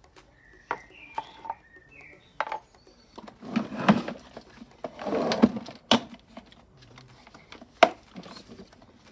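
Hard plastic knocks, clicks and rustling scrapes as the plastic housing and wheel of a Kärcher K4 pressure washer (not running) are handled, turned over and a wheel pulled off: a few sharp knocks, and two longer scraping stretches in the middle. Birds chirp faintly near the start.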